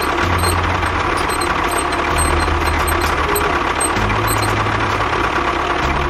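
An engine running steadily, mixed with background music.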